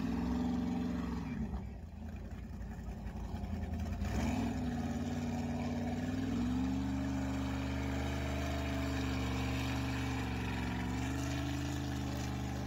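Speedboat's inboard engine with open chrome exhaust pipes running under way. Its pitch drops about a second and a half in, climbs again around four and six seconds, holds steady, then dips briefly and picks back up near the end.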